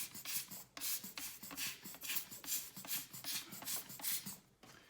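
Brush bristles scrubbing dust off the inside of an opened laptop in quick, even strokes, about three or four a second, stopping shortly before the end.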